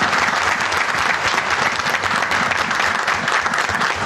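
Applause from many people clapping steadily without a break.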